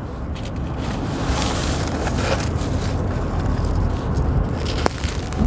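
Hands scraping and digging through dry, gritty sand and cement crumbs, the grit crackling as it shifts, with one sharp click near the end. A steady low rumble runs underneath.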